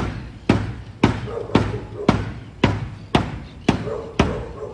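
A car's body being pounded with heavy, evenly spaced blows, about two a second, each with a short ring after it.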